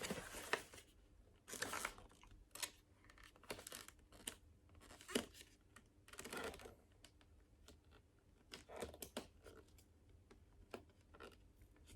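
Faint, intermittent rustling, crinkling and tearing of packaging being worked open by hand, in short irregular bursts.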